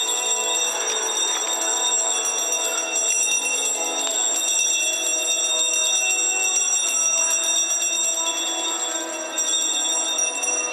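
Small hand bells shaken continuously, a steady, bright ringing and jingling.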